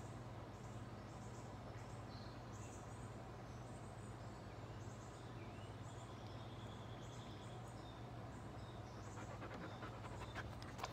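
Dog panting softly and steadily with its mouth open, with a few light clicks near the end.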